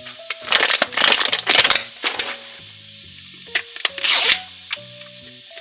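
Plastic toy wrapping crinkling and tearing in several short crackly bursts as a packaging layer is opened, over light background music.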